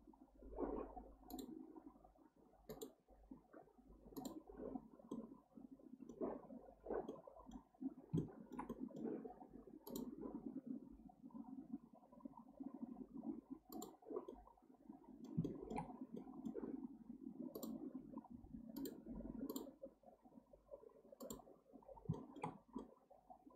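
Computer mouse clicking, single clicks at irregular gaps of about a second, over a faint low rustle of the mouse being moved.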